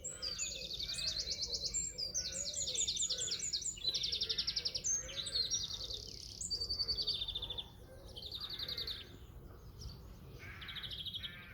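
Several garden birds singing at once, with rapid, high trilled phrases repeating every second or so over softer lower warbling. The singing is quieter after about eight seconds.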